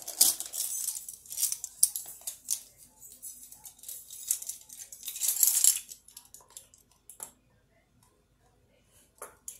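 Plastic measuring spoons on a ring clattering and a pepper container being handled, with rustling and clicks. The sound is busiest over the first six seconds, loudest just before it thins to a few light clicks.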